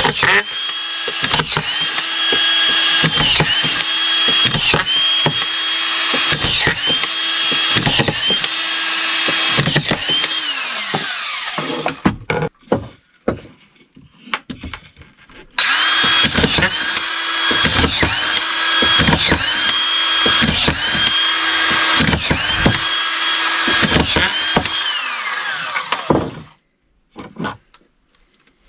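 Makita autofeed drywall screwdriver running and driving strip-fed screws into a block of timber one after another, the motor's pitch dipping about once a second as each screw is driven. It runs in two long bursts with a few seconds of clicking and handling between them, then winds down near the end.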